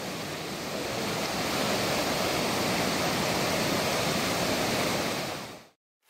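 Gushing mountain river running in white-water rapids over boulders, a steady rush of water that fades out shortly before the end.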